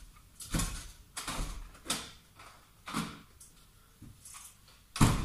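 A door being rattled and knocked about six times, roughly a second apart, the loudest near the end.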